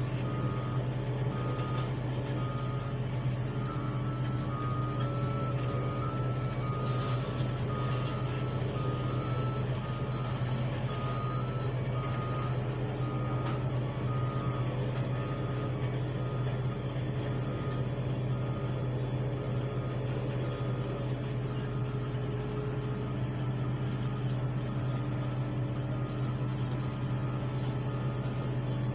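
Heavy construction machinery running with a steady low engine drone, while a vehicle's reversing alarm beeps over and over, stopping about two-thirds of the way through.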